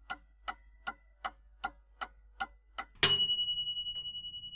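Clock ticking, about two and a half ticks a second, then about three seconds in a single bright bell strike that rings on and slowly fades.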